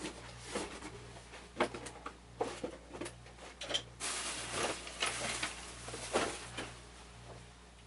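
Rummaging through tools and small objects: irregular clicks, knocks and rustling as things are picked up and moved about.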